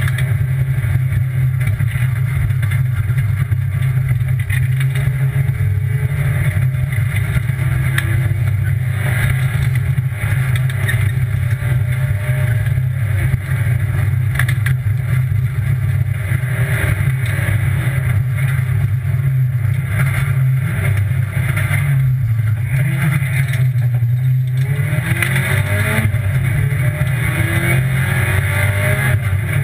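Rally car engine running hard under load, heard from inside the cabin. A little over 24 seconds in, it eases off briefly, then revs up again with rising pitch.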